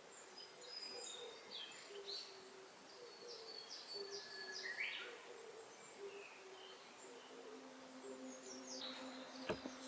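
Several birds singing: short high chirps and downslurred whistles, with a low hooting call repeated steadily underneath. A single sharp knock near the end.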